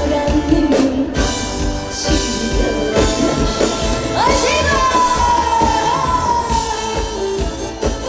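Live trot music with a band playing a steady beat. About halfway through, a long high melody note swoops up and then slides slowly down.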